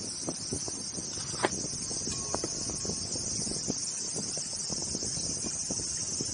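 Steady high-pitched drone of insects calling. Over it come the short crisp crunches and taps of a knife cutting through a cabbage and its leaves being pulled apart, with one sharper tap about one and a half seconds in.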